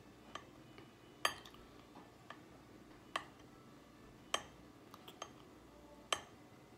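Metal fork clinking and tapping against a plate, about eight sharp separate clicks, the loudest a little over a second in.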